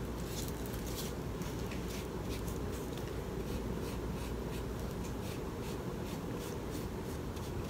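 Flat paintbrush bristles scraping over a painted wooden letter in short, irregular strokes, a run of faint scratches over a steady low room hum.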